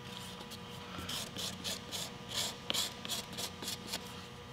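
A wooden stick scraping and spreading thick epoxy filler over a small dome-shaped cover: a run of short scraping strokes, about three a second, starting about a second in and stopping near the end.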